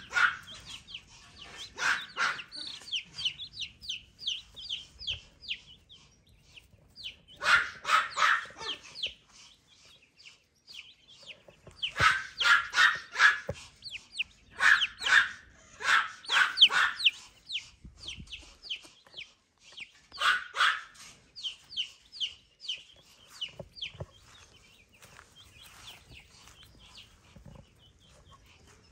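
A small dog barking in short bursts of several quick barks every few seconds, over the steady high-pitched peeping of chicks. The barking stops for the last few seconds, leaving the chicks' peeps.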